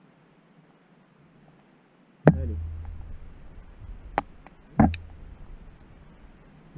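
Camera knocking against the stone walls of a narrow air shaft as it is lowered and swings: a sharp knock about two seconds in with a low rumble of handling after it, then two more sharp knocks a couple of seconds later.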